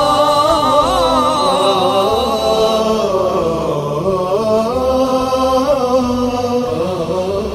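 Background nasheed: voices chanting a slow, drawn-out melody, with no instruments heard.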